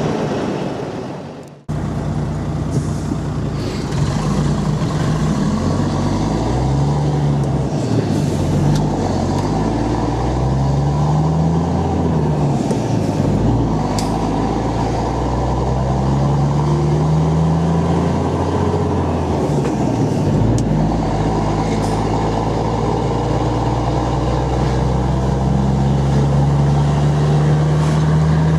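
Volvo FH12 truck's inline-six diesel running through a loud, open high-pipe exhaust, pulling up through the gears: the engine note climbs, drops at each shift, and climbs again, with a longer pull near the end. The sound cuts out abruptly for a moment about a second and a half in.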